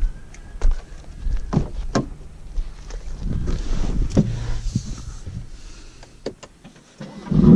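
Handling sounds of a BMW M3 F80: steps on a dirt track, clicks and knocks as the driver's door is opened, and shuffling as someone gets into the seat. Near the end the car's S55 twin-turbo straight-six starts up loudly through its M Performance exhaust.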